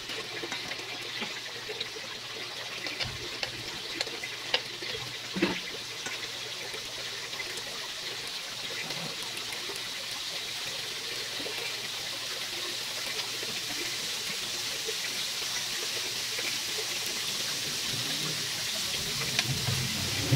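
Marinated chicken fillets sizzling on an electric grill plate, a steady hiss that grows louder as more pieces are laid on. A few sharp clicks of metal tongs come about four to five seconds in.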